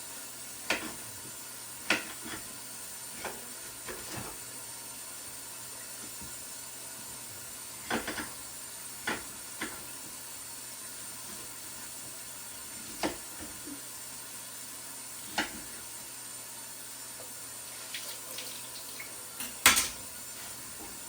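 Irregular sharp knocks and clicks of a kitchen knife cutting apple pieces on a cutting board, the loudest knock near the end, over a steady hiss.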